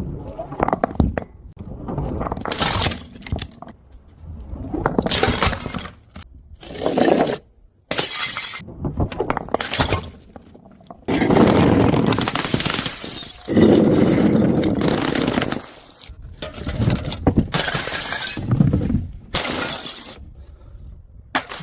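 Glass bottles smashing one after another: about ten separate crashes of breaking glass. Two of them near the middle run on for a couple of seconds each.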